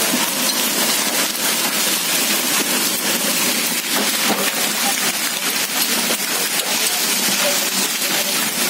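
Heavy rain mixed with hail pelting a concrete courtyard: a steady, dense hiss of countless small impacts, with sharper ticks of hailstones through it.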